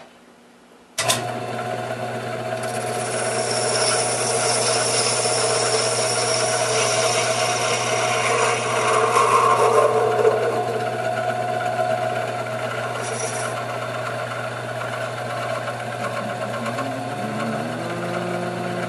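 Taig benchtop lathe motor starting about a second in and running steadily, turning a brass blank. A high hiss of the tool cutting the brass on a 20-thousandth pass runs over the motor and stops about two-thirds of the way through.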